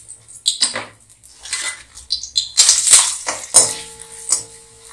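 A steel slotted spoon clinks and scrapes against an aluminium kadai while papads fry in hot oil, with short bursts of sizzling. About three and a half seconds in, a sharp clang against the kadai leaves it ringing.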